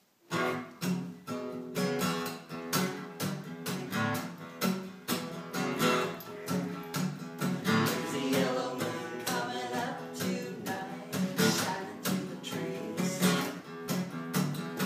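Two acoustic guitars strumming chords together in a steady country rhythm, starting about a third of a second in: the instrumental intro before the vocals.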